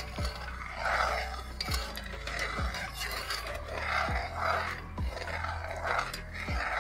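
Metal spoon stirring and scraping against the side and bottom of an aluminium pot of coconut milk, in repeated strokes, over background music with a steady beat.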